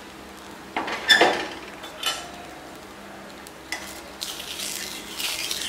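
A flatbread frying on an oiled, hot iron tawa: a few light knocks of kitchen utensils in the first two seconds, then a sizzle that swells from about four seconds in.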